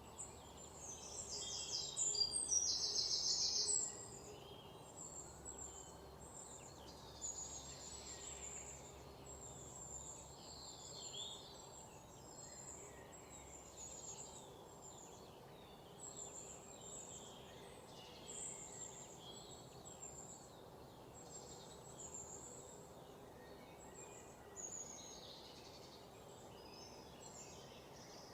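Small birds chirping again and again, with a louder buzzy trill between about one and four seconds in, over a faint steady background hum.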